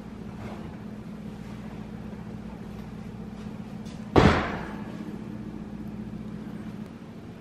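An oven door is shut hard about four seconds in: one loud bang with a short ringing tail, over a steady low hum.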